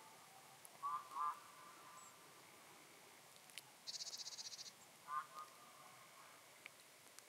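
Frogs calling from the pond: short, pulsed double croaks about a second in and again near five seconds. A brief rapid high trill sounds near four seconds. All of it is faint.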